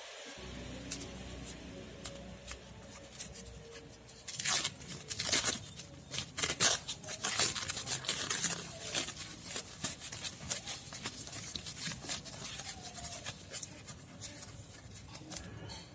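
Irregular clicks, taps and scrapes of close-up handwork on a mobile phone's small parts, busiest a few seconds in.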